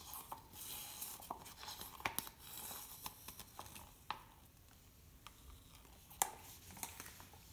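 Wooden craft stick scraping thick acrylic paint out of a plastic cup, quiet scrapes with small sharp clicks of wood against plastic.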